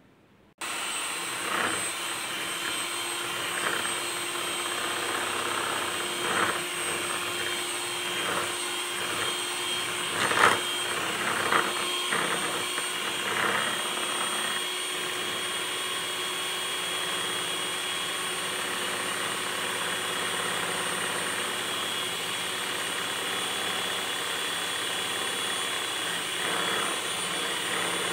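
Electric hand mixer starting about half a second in and running steadily, its beaters whisking egg, sugar and ghee in a plastic bowl. Through the first half the beaters click and knock against the side of the bowl.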